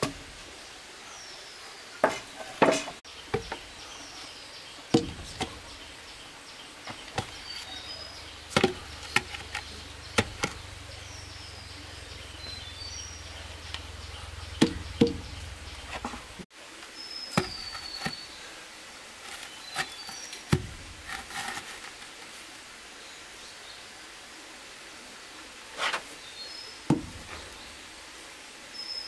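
Scattered wooden knocks and taps as bamboo poles and timber are handled and set against a brick wall, with birds chirping now and then.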